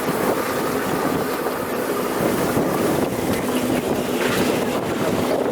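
GAZ-66 truck's V8 petrol engine running steadily on the move, with wind buffeting the microphone.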